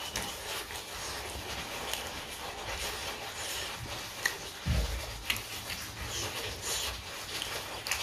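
Close-miked chewing and mouth sounds of a person eating, with scattered small clicks and one low thump near the middle.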